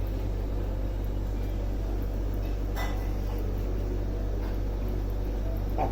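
Steady low hum of a running appliance or fan, with a single brief tap about three seconds in.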